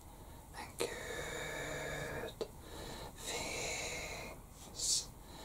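Makeup brush swept close over the microphone: two long, soft swishes, then a short, sharper swish near the end.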